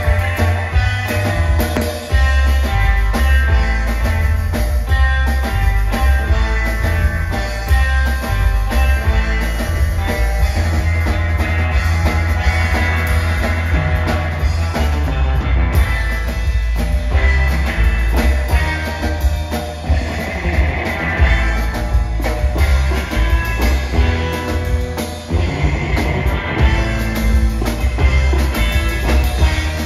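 Live instrumental surf rock played by a three-piece band: electric guitar over upright bass and a drum kit, with a strong, steady bass line and a constant drum beat.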